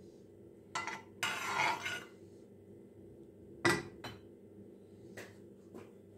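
Kitchen dishes and utensils clinking and knocking as they are handled. There is a short clatter about a second in and a sharp clack near the middle, the loudest sound, then a few lighter taps.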